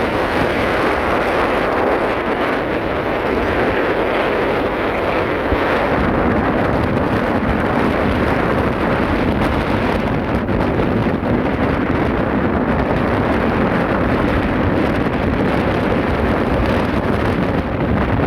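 Steady wind noise buffeting the microphone aboard a ship under way, with a low rumble underneath that grows a little stronger about six seconds in.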